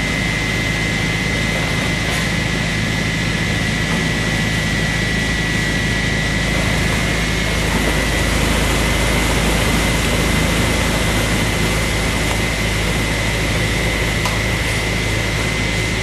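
Wood chipper running steadily, a continuous engine drone with a steady high-pitched whine over it, swelling slightly in loudness around the middle.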